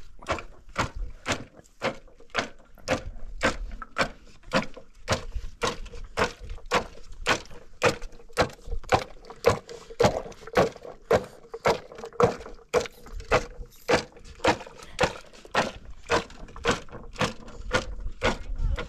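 A wooden pestle pounding steadily inside a plastic bottle, about two strikes a second, each knock with a short hollow ring.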